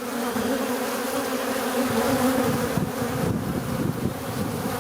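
A swarm of bees buzzing around a beehive entrance: a dense, steady hum of many wings, with large drone-like bees crowding in and out of the hive.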